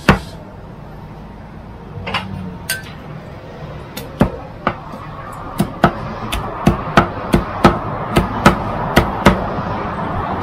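Cleaver chopping grilled chicken on a thick wooden chopping block: sharp chops, a few spread out at first, then a quick steady run of about three a second.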